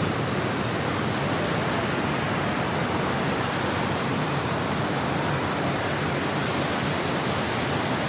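The Rhine Falls in heavy flow, water pouring over the rocks in a steady, unbroken rushing noise.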